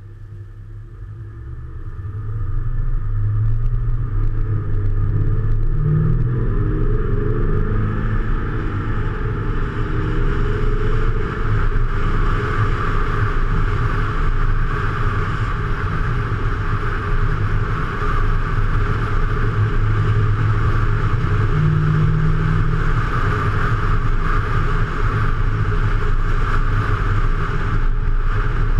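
Road vehicle driving along a highway: steady engine and road noise, growing louder over the first few seconds and then holding.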